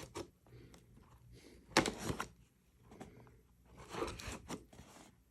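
A cardboard retail box being torn open by hand, with scraping and ripping of cardboard. The loudest rip comes about two seconds in and another about four seconds in.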